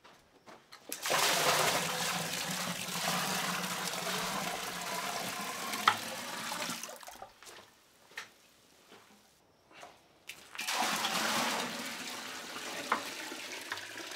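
Water poured from a plastic bucket into a stainless steel beer keg, splashing in two pours of several seconds each with a short pause between. A sharp knock comes near the end of the first pour.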